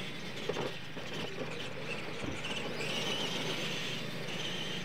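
Electric RC monster trucks of the Clod Buster type racing across dirt, their motors and gears whining. The whine grows stronger about halfway through.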